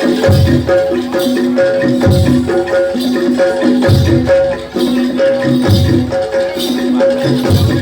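Live gamelan ensemble playing jaranan accompaniment: short repeating notes on tuned metal percussion over a low drum or gong stroke about every two seconds, with a rattling shimmer on top.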